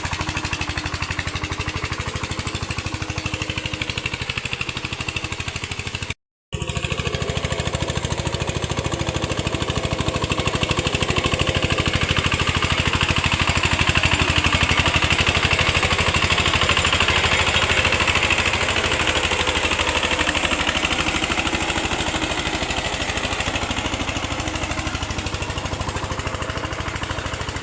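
VST walk-behind power tiller's single-cylinder diesel engine running steadily with a fast even chugging. The sound drops out completely for a split second about six seconds in, and runs a little louder for a stretch after that.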